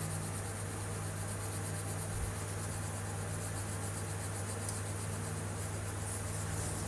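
Crayon rubbing back and forth on paper in quick colouring strokes, faint under a steady low hum and hiss.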